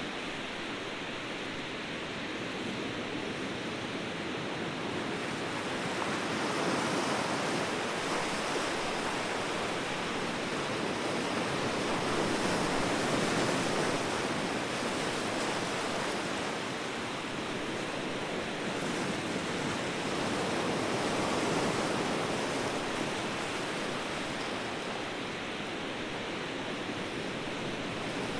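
Ocean surf washing steadily, swelling and easing every seven or eight seconds as waves come in.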